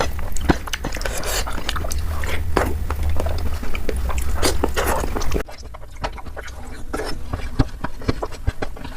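Close-miked eating sounds: a person biting and chewing food, with many short, sharp crunchy clicks and wet mouth sounds. About five and a half seconds in the sound drops and becomes duller, as at a cut to another take.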